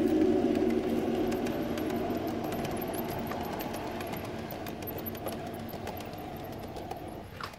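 Garden-railway model electric locomotive and coaches running past: a steady motor and gear hum with light clicking of wheels over the track, fading as the train moves away.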